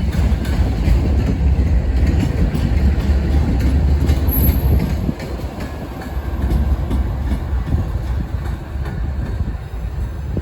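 Freight train rolling past: a loud, steady low rumble of the cars on the rails, with wheel clicks over the joints. The loudness dips briefly about five seconds in.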